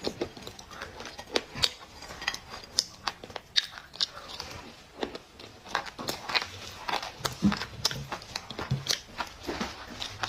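Black clay being bitten and chewed close to the microphone: a dense run of sharp, irregular crunches.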